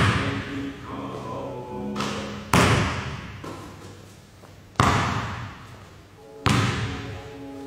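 A basketball thudding four times, about two seconds apart, each thud echoing around a large gym, over background music.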